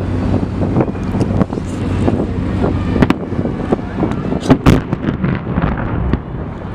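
A riverboat's engine hums steadily under wind on the microphone and people talking on deck. Sharp cracks break through it now and then, the loudest about three seconds in and about four and a half seconds in.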